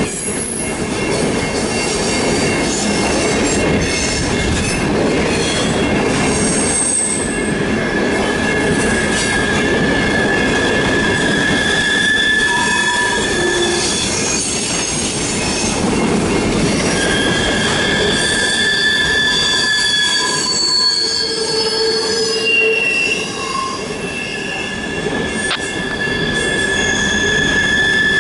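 Freight train flatcars loaded with trash containers rolling past close by: a steady rumble of wheels on rail, with high-pitched flange squeal in several steady tones that fades in and out.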